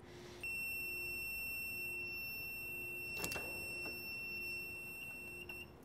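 JP450 mug press's timer alarm: one steady, high-pitched beep that starts about half a second in and holds for about five seconds, signalling the end of the press time. About three seconds in, a single clunk as the press is opened.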